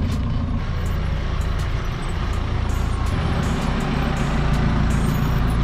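Off-road SUV engines running on a dirt track, with a steady heavy low rumble.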